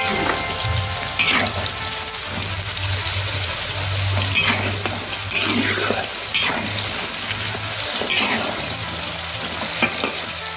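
Hot oil sizzling steadily as chunks of meat deep-fry in a large wok, swelling briefly several times. The last notes of intro music fade out in the first second.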